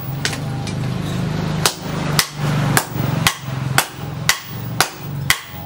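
Blacksmith's hammer striking metal in a steady rhythm, about two ringing blows a second, over a steady low hum.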